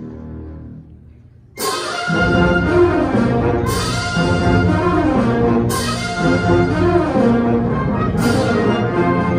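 Concert band of brass, woodwinds and percussion playing: a soft, held low chord fades, then about a second and a half in the full band comes in loud, with brass to the fore and a percussion crash about every two seconds.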